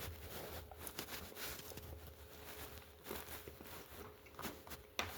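Faint chewing and small mouth clicks of someone eating a caramel apple crumble dessert, with a few slightly louder clicks in the second half.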